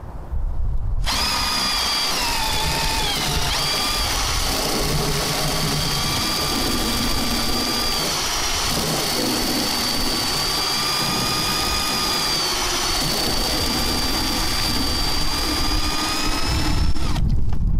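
A cordless drill spinning a 3D-printed lobe water pump, a steady motor whine that starts about a second in and dips briefly in pitch a couple of times as the load changes. Water sprays and splashes from the pump's outlet hose underneath.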